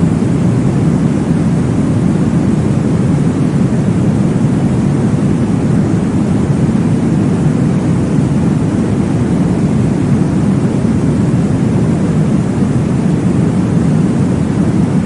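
Steady, deep rushing noise weighted toward the low end: a white-noise womb-sound track made to lull a baby to sleep.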